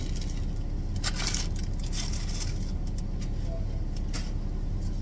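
Car engine idling, a steady low rumble heard inside the cabin, with a few short rustles about a second in and again near three and four seconds.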